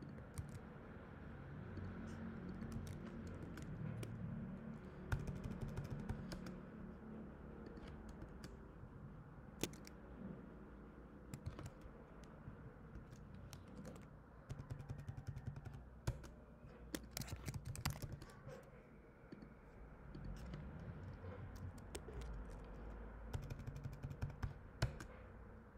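Faint typing on a computer keyboard: scattered single keystrokes, then quick runs of key clicks about two thirds of the way in and again near the end.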